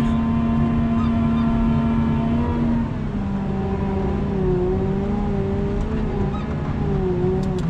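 Plow truck's engine running steadily under load while plowing snow, its note dropping to a lower pitch about three seconds in.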